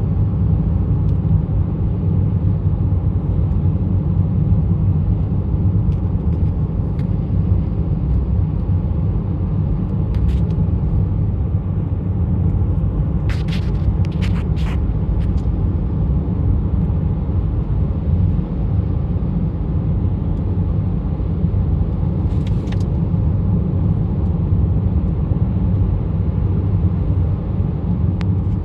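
A steady low rumble, with a few brief high-pitched chirps or squeaks about halfway through and again later on.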